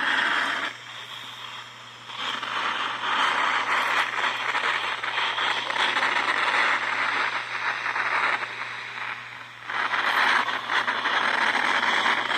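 Static hiss from a portable radio's speaker, cutting out for about a second twice and then returning, over a faint steady low hum.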